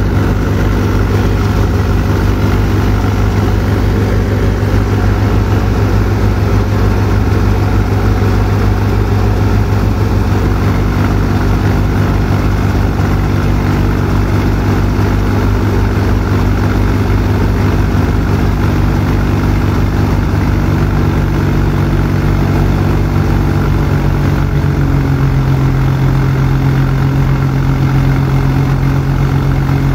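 Tractor's diesel engine running steadily under load, driving a wheat thresher as sheaves of wheat are fed in. The engine note shifts slightly about three-quarters of the way through.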